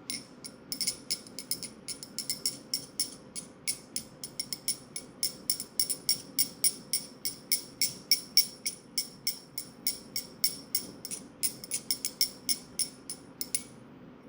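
Rapid metallic clicking, about four or five clicks a second, each with a short high ringing tone; it starts and stops abruptly.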